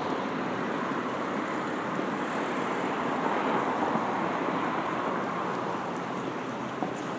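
Steady rushing noise of city traffic, with no single vehicle standing out, slowly getting quieter.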